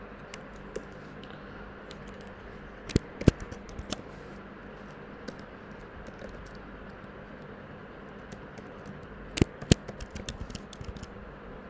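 Keystrokes on a computer keyboard in two short bursts of typing, about three seconds in and again near the end, over a steady faint background hum.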